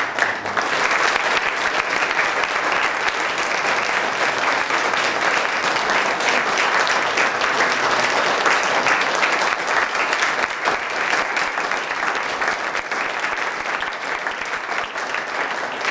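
Crowd applauding: dense, steady clapping that starts abruptly.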